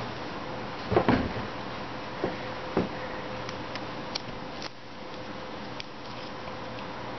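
A few light knocks and clicks from hands handling a tin can and the thread and foil leaf at its rim, the loudest about a second in. Under them is a steady hiss with a faint hum.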